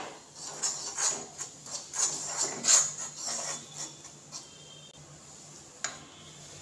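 Metal spoon scraping and stirring crushed Oreo biscuit crumbs with melted butter in a nonstick pan: a run of irregular scrapes that dies down after about three and a half seconds, with a single click near the end.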